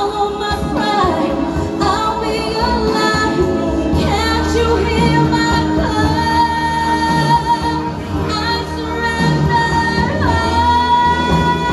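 A woman singing a pop vocal into a handheld microphone over backing music, holding long high notes about six seconds in and again near the end.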